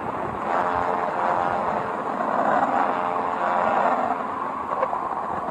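A planetary space-sound sonification: a steady, eerie drone with a rushing, rumbling texture and many close tones layered in the middle range, swelling a little midway.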